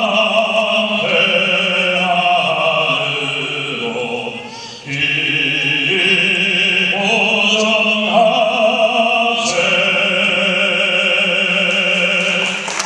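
A man singing solo into a microphone, his voice carried through the hall's sound system in long held phrases with a wide vibrato. There is a brief break between phrases about five seconds in.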